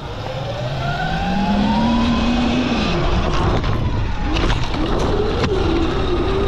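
Sur-Ron electric dirt bike motor whining under throttle, its pitch rising over the first two seconds, dropping as the throttle eases and climbing again, over a rough rushing noise. A couple of sharp knocks come about two-thirds of the way through.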